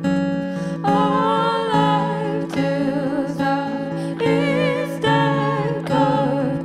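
Live acoustic guitar and ukulele playing chords, with a woman's singing voice coming in about a second in, its notes wavering with vibrato.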